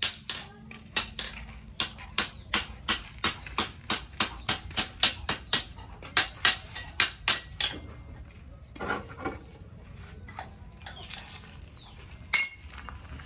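Hand hammer striking steel on a post anvil in a steady run of sharp blows, about three a second, that stops after several seconds; a few lighter knocks and one sharp strike follow near the end.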